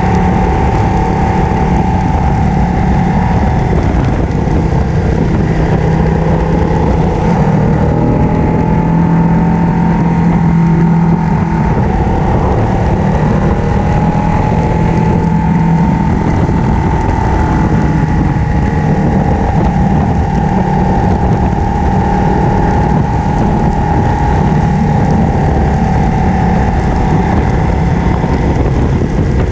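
Ducati 1299 Panigale's Superquadro V-twin engine running at a steady road cruise, its pitch wavering only slightly, with wind rushing over the bike at speed.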